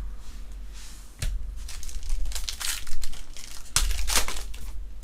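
Crinkling and tearing of a trading-card pack wrapper being opened, in several irregular rustling bursts with the loudest in the middle and near the end.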